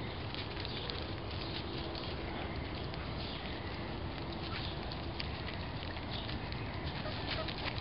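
Four-week-old puppies scuffling about on dry leaf and wood-chip mulch: a steady rustle with many small scattered clicks.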